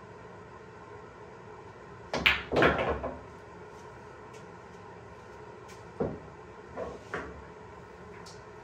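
Pool balls knocking on a billiard table: a loud cluster of clacks and rattling about two seconds in, then one sharp knock about six seconds in, followed by a few lighter knocks.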